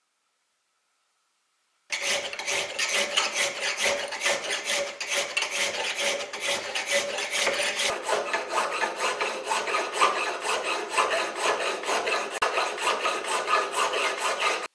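A hand file rasping back and forth through a slot in a steel bar held in a vise, in quick, even strokes starting about two seconds in: filing out the eye of a hammer head between two drilled holes.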